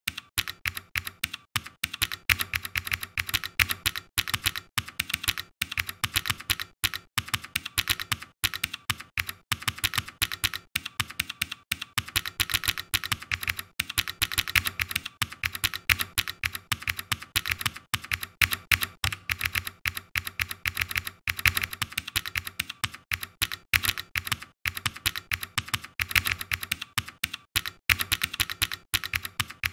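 Computer keyboard typing: fast, continuous key clicks with a few brief pauses.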